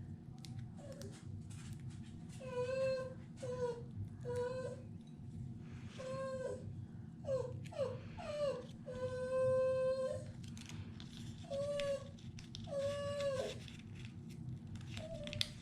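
A pet making a series of high, whining peeps: about ten short calls, several sliding down in pitch at the end, with one longer held call near the middle.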